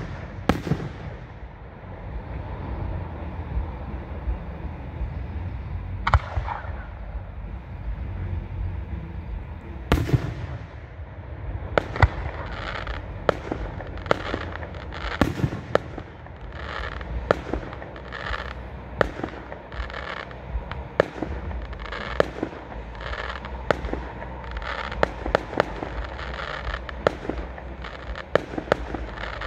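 Fireworks display: a few single loud bursts in the first ten seconds, then from about halfway through a rapid run of sharp bangs and crackling pops, several a second.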